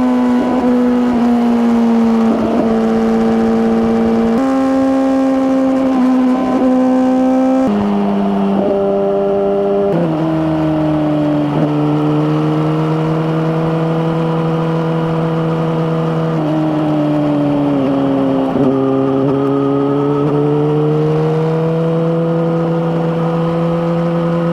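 Suzuki GSX-R1000R's inline-four engine running at speed through an Akrapovic slip-on exhaust. Its pitch holds steady for several seconds at a time, steps down sharply a few times, about a third of the way in and again shortly after, as it shifts up, then slowly climbs again.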